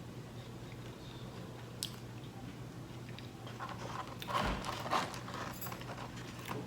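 Faint close-up eating sounds: a mouth chewing, with a few small crunches and clicks that gather in the second half.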